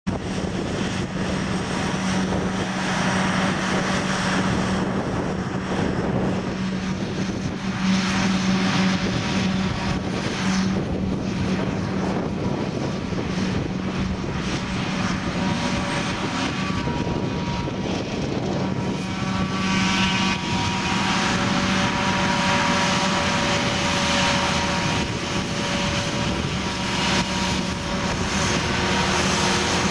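John Deere 7450 self-propelled forage harvester chopping maize, with a John Deere 7930 tractor and trailer running alongside: a steady engine drone with a constant low hum. Higher whining tones from the machinery come and go and are strongest in the second half.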